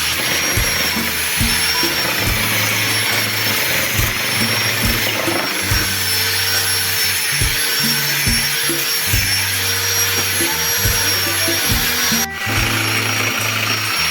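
Electric angle grinder with a coarse disc running steadily against wood, a continuous high motor whine over grinding noise, with a brief dip about twelve seconds in.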